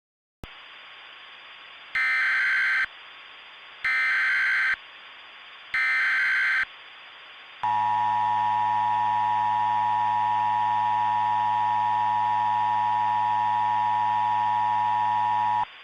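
Emergency Alert System tones over a steady static hiss. First come three short data bursts of the SAME header, about two seconds apart. Then the two-tone EAS attention signal holds steady for about eight seconds and cuts off suddenly.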